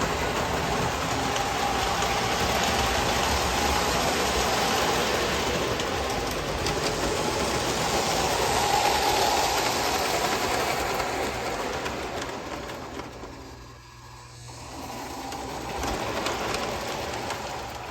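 Lionel postwar O-gauge model train running on the layout track: a steady whir of its motor and wheels on the rails, dropping away briefly near the end before rising again.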